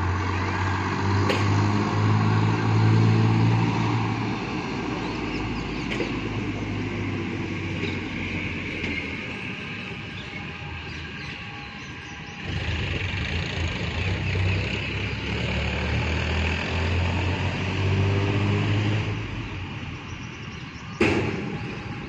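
Motor vehicle engines running, a low hum that swells during the first few seconds and again from about halfway through, over steady outdoor background noise. A single sharp thump comes near the end.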